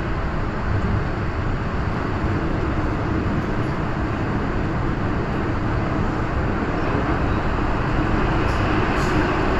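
MTR M-train heard from inside the car: a steady rumble of wheels on rail and motor running as the train pulls out of a station and enters the tunnel. A hum in the noise grows stronger, and the whole sound gets a little louder in the second half.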